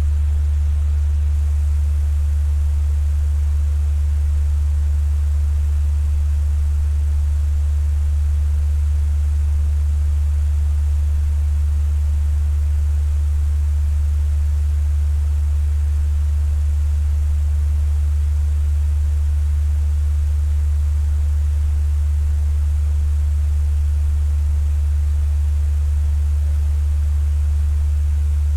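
Electric fan running steadily: a strong low hum with a soft, even hiss above it, unchanging throughout.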